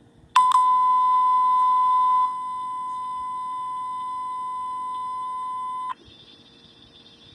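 Fire dispatch alert tone: a single steady high-pitched tone held about five and a half seconds, louder for the first two seconds, then quieter until it cuts off suddenly. It is the alert that comes before a dispatch announcement.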